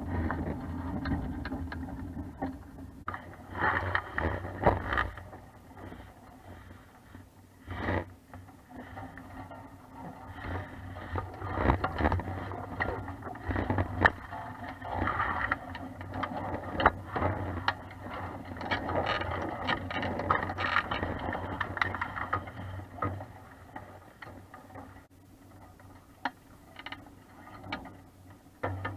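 Noises aboard a 420 sailing dinghy under way: irregular scraping, creaking and knocking of the boat and its fittings, rising and falling in uneven waves.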